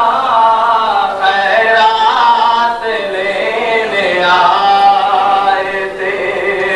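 A naat, a Punjabi devotional song in praise of the Prophet Muhammad, sung by a male voice without instruments in long, wavering held notes.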